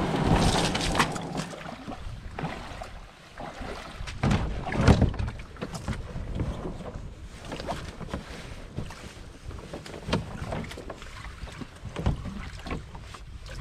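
Rope being worked around a wooden paddle shaft on a canoe's gunwale: rope rubbing and scattered knocks of the paddle and rope against the hull, over wind rumbling on the microphone.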